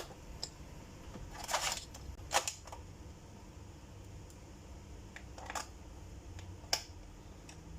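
Short plastic scrapes and clicks of laptop parts being handled, as the DVD optical drive is slid back into its bay: four or so brief rasps and clicks spread over a few seconds.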